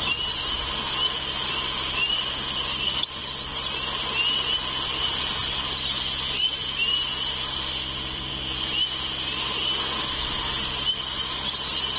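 Bald eagle chicks peeping: short, high, rising chirps about once or twice a second, over a steady hiss and a low hum.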